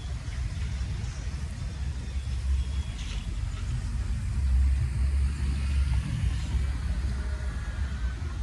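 Cars driving past close by, one after another, with a low rumble that swells about four and a half seconds in and again about six seconds in.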